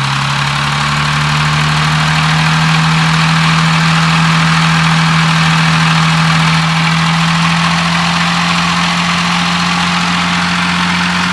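Audi Q7 4M's 3.0 TDI V6 diesel (CVMD) held at raised revs with the throttle pressed and held, running steadily. The engine has a clattering knock that is put down to the timing chain tensioner.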